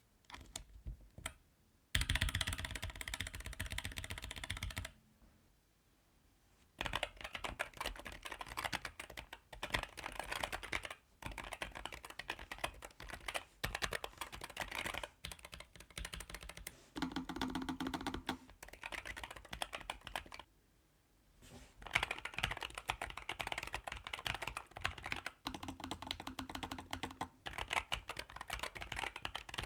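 Typing on a NuPhy Air75 V2 mechanical keyboard: fast runs of key clicks, broken by two short pauses, one about five seconds in and one about twenty seconds in.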